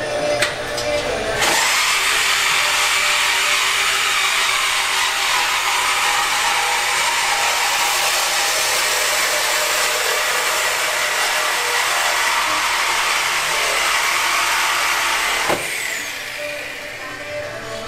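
Cordless power tool cutting through a steel exhaust pipe under the truck, part of removing the resonator. The tool starts about a second and a half in, runs steadily with a loud hiss for about fourteen seconds, then stops with a click and a short falling whine as it winds down.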